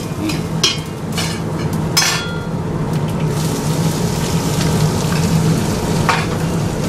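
Oil sizzling in a steel pot over a gas flame as a tempering of mustard seeds, urad dal, garlic and curry leaves fries, over a steady low hum. A steel spoon clicks against the bowl and pot several times as chopped red onion is added, and the sizzle brightens from about three seconds in.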